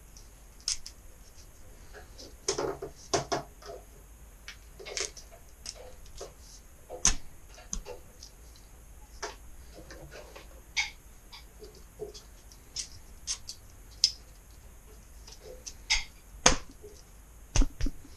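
Irregular sharp clicks and knocks as a screen frame is assembled, its cut side pieces fitted and pressed together at the corners, over a low steady hum.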